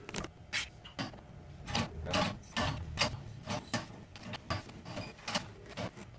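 Hydraulic cab tilt hand pump being worked by its lever, giving a run of sharp, uneven clicks and ticks, about three a second, as the freshly filled system is pumped through.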